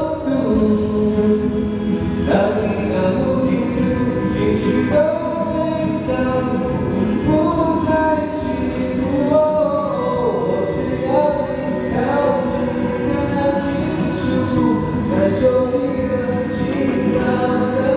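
A male voice singing a Mandarin pop ballad into a microphone while strumming an acoustic guitar, with long held, gliding notes over a steady strum.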